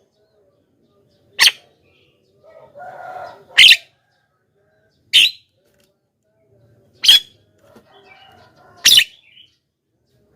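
Javan myna calling: five loud, sharp, high calls about every one and a half to two seconds, with softer chattering between them.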